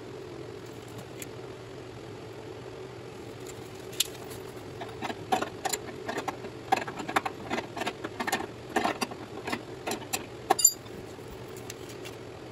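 A run of irregular light clicks and clinks of tools and metal parts being handled, ending in one sharp metallic click, over a steady low background hum.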